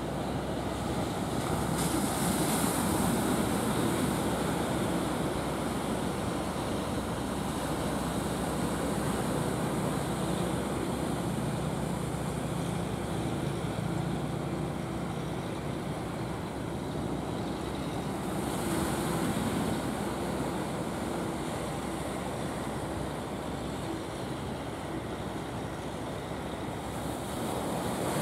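Surf and wash at a river mouth with wind on the microphone, surging twice, over the steady running of a wooden fishing boat's engine as it heads out to sea.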